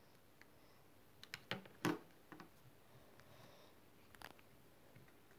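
A few light clicks and knocks of small objects being handled on a hard surface: a quick cluster about one and a half to two seconds in, then single ones a little later and near the four-second mark, against quiet room tone.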